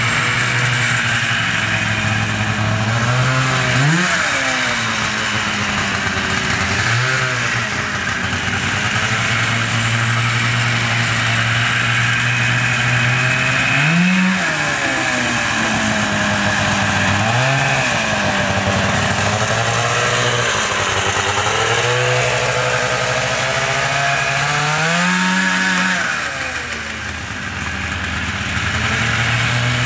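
Rotax 377cc twin-cylinder two-stroke snowmobile engine idling, with about five quick throttle blips that rev it up and let it drop back; one rev is held for a few seconds later on.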